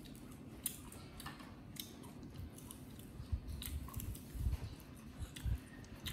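Close-up chewing and biting of food: irregular crunchy clicks and soft low thumps.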